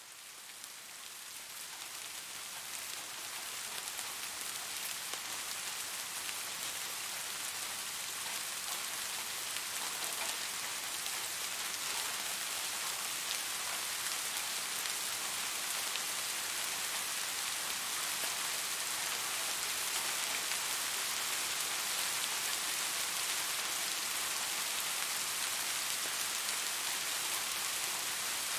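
Steady rain falling: a dense hiss with a fine patter of drops, fading in over the first few seconds and then holding steady.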